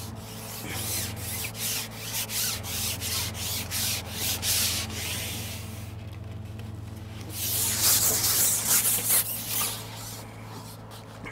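Fishing pole being pushed out, sliding and rubbing in a run of short scraping strokes about two a second, then a longer, louder stretch of rubbing a couple of seconds later.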